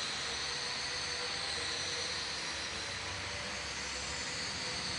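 Steady rushing background noise with faint, steady high tones running through it, even in level throughout.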